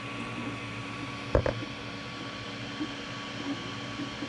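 Steady fan-like machine hum with faint steady tones, and two quick knocks close together about a second and a half in, the first louder.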